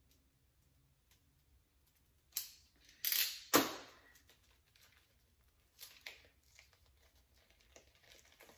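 Paper wrapping being torn open and rustled by hand, in a few short bursts: one about two and a half seconds in, two close together around three seconds, and another near six seconds.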